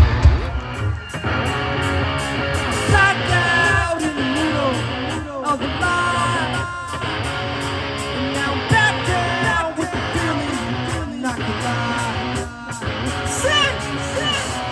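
A live rock band playing through a PA, with electric guitars, drums and singing.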